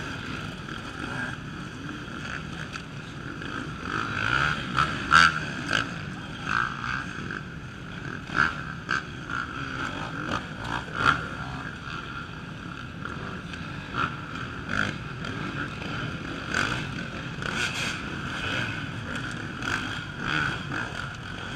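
Off-road racing motorcycles' engines running as riders work through a log section, with short sharp revs and bursts coming every second or two over a steady engine drone.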